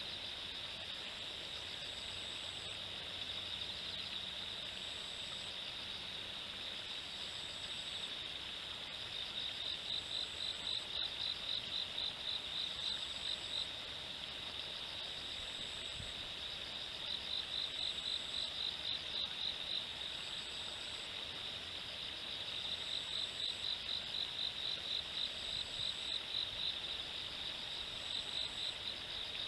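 Insects singing: a steady high buzz that swells in long stretches into fast regular pulsing, about four pulses a second, with a separate short, higher note repeating every two to three seconds.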